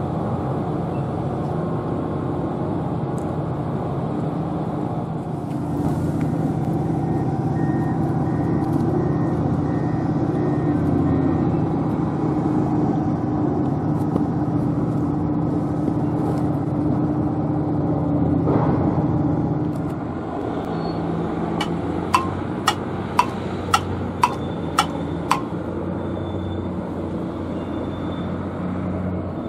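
Engine of a work vehicle running steadily, with faint repeated beeps, typical of harbour work machinery. Near the end a run of about seven sharp clicks, about two a second.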